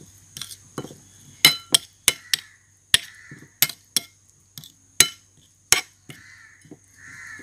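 Steel spoon clinking and scraping against a ceramic plate while stirring a wet marinade paste: a dozen or so irregular sharp clinks, some briefly ringing, with soft scraping between them.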